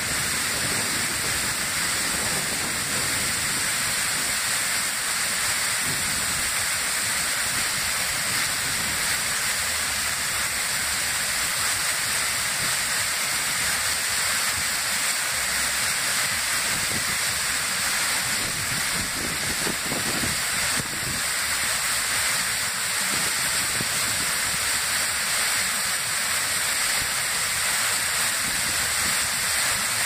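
Waterfall pouring in a steady, unbroken hiss of falling water.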